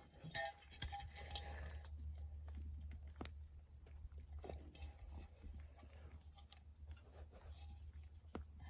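Faint hand-work sounds: scattered small clicks, knocks and scrapes as a downrigger rod-holder insert is worked loose and popped out, over a steady low hum.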